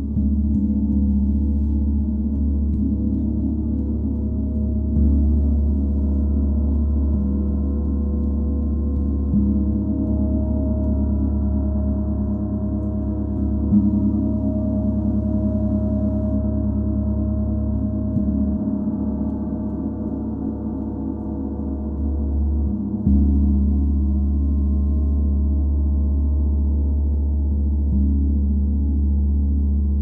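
32-inch Paiste Symphonic gong played softly and continuously: a low, sustained wash of many overlapping tones that swells again with each new gentle stroke, every few seconds.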